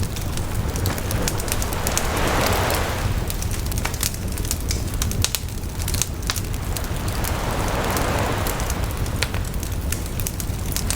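Campfire crackling with frequent sharp pops and snaps, over sea waves washing onto the shore. Two waves swell and fall away, one a couple of seconds in and one past the middle.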